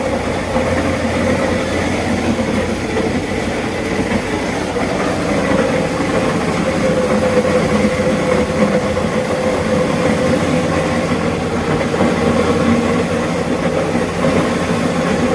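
Belt-driven spice crushing mill (a hopper-fed pulveriser powered by an electric motor) running steadily: a loud, continuous mechanical hum and rattle with a constant mid-pitched tone.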